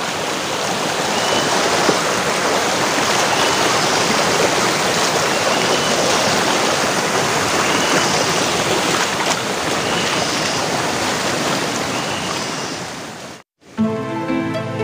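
Shallow rocky river flowing over stones: a steady, loud rush of water. Near the end the sound cuts out for a moment and soft background music begins.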